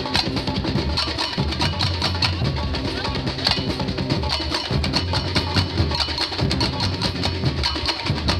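Samba percussion band (bateria) playing a steady driving groove: deep surdo bass drums under dense strokes from tamborims and other small drums.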